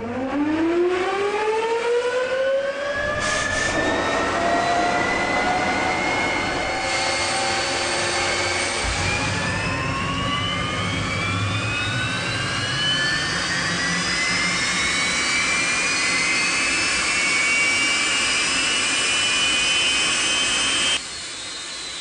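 Jet engine of a precooler test rig starting up: a whine climbs steeply in pitch over the first few seconds, levels off, then climbs again from about ten seconds in as the engine spools up further, over a steady rushing of air. It turns suddenly quieter about a second before the end.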